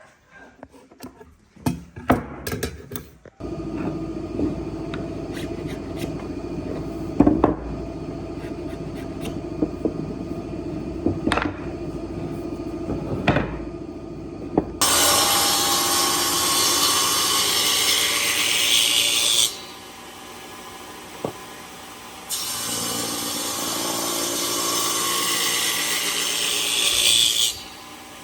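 Woodworking with tools in a workshop: scattered knocks and taps, then a machine running steadily with the odd knock. A power tool then cuts or sands wood in two loud runs with a short pause between them.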